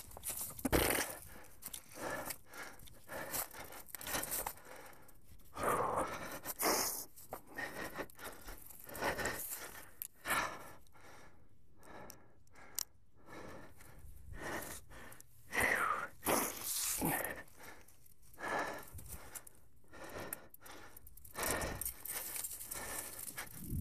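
Mountain bike tyres rolling through dry fallen leaves on a forest trail, crunching and rustling in uneven bursts as the bike moves over the ground.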